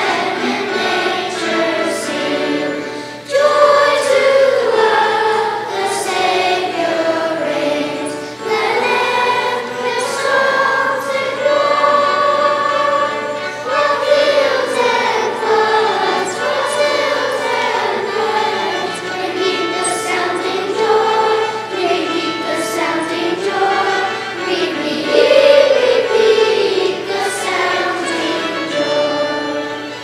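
Children's choir singing, with brief pauses between phrases about three and eight seconds in.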